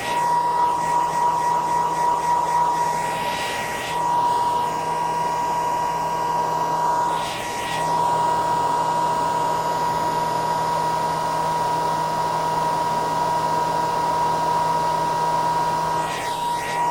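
Hair dryer running: a steady high whine over the hiss of blowing air. The whine briefly drops out twice, about four and eight seconds in, while the rush of air swells.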